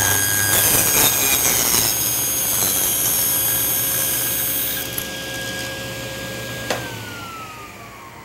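Table saw ripping a thin 1/16-inch strip off a wenge blank: the cut is loudest in the first couple of seconds, then the saw runs on with a steady whine. About two-thirds of the way through there is a click as it is switched off, and the whine falls in pitch as the blade spins down.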